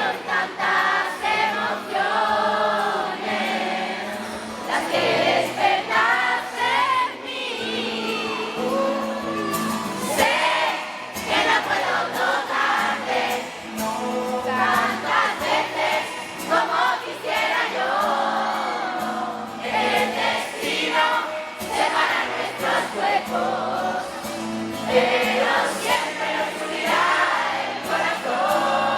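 A male pop duo singing a song live over amplified backing music, the vocals in harmony, with no break in the music.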